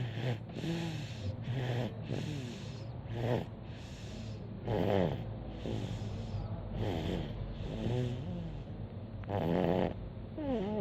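Snoring: a sleeper's noisy breaths repeating about once a second, the louder ones carrying squeaky, falling whistle-like tones, strongest about five seconds in and near the end.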